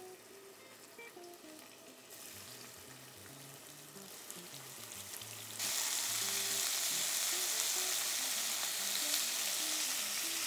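Slices of pork loin sizzling in hot oil in a frying pan, a faint hiss at first that becomes much louder about halfway through.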